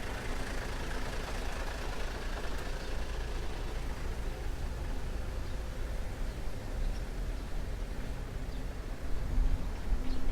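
City road traffic: cars and trucks running past in a steady low rumble, with a heavier vehicle's engine rising toward the end.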